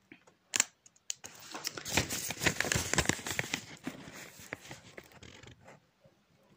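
Close rustling and crinkling handling noise with many small crackles, lasting about four seconds, after a single sharp click about half a second in.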